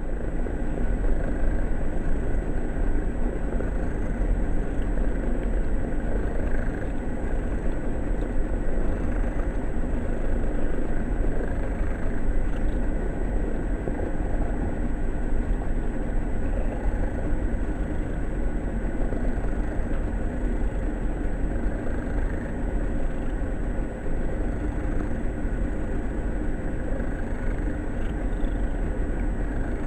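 A cat snoring, a steady rumbling noise with no clear pauses.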